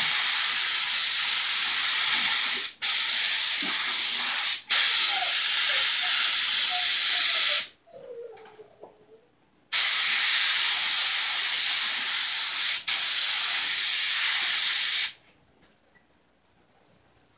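Gravity-feed paint spray gun hissing as it sprays clear coat onto a motorcycle fender, in five passes of two to three seconds each, cut by brief releases of the trigger and a longer pause about halfway, then stopping near the end.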